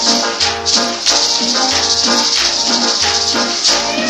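Cumbia music played loud through large sound-system loudspeakers, with a steady shaker rhythm over a bass line.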